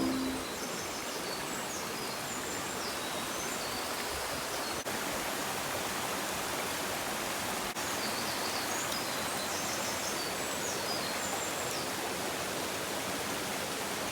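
Mountain river rushing steadily, with short high bird calls in two bursts, near the start and again in the middle.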